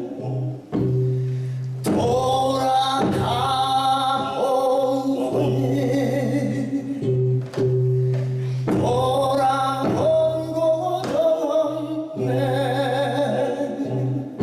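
Male vocalist singing a Korean song live, in long held phrases that start afresh about every few seconds, over a steady low accompanying tone.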